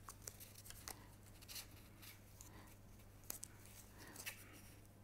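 Faint scattered clicks and rustles of paper being handled as a paper strip beam model is fitted with a pin hinge, over a steady low hum.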